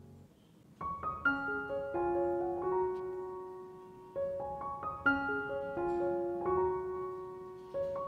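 Background piano music: a gentle melody of single notes and soft chords, each note fading after it is struck. It starts about a second in after a brief pause.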